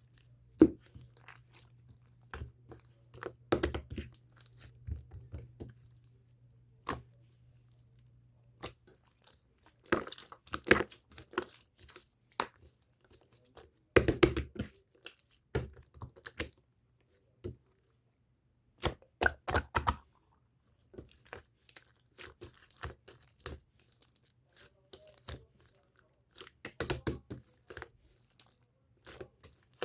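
Irregular close-up handling sounds: crinkling, tearing and short crackles and clicks, in clusters with quiet gaps between them.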